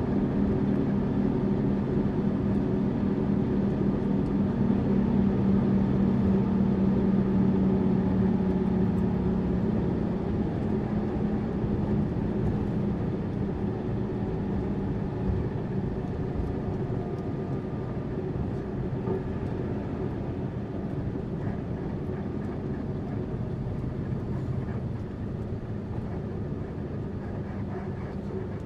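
Tourist bus engine running with road rumble while the bus drives. The engine hum holds one pitch and is loudest in the first ten seconds or so, then eases off under the steady rumble.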